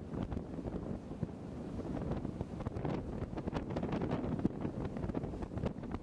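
Wind buffeting the microphone on a rigid inflatable boat running across choppy sea, in uneven gusts over a steady rush of water along the hull.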